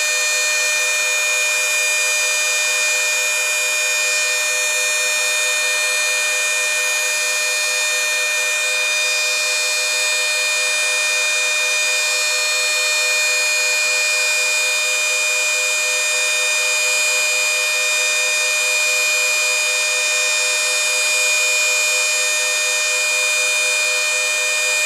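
Several trim routers, including a Kobalt, a Makita and a Bauer, running side by side with no load. Together they make a steady, high multi-tone whine that does not change.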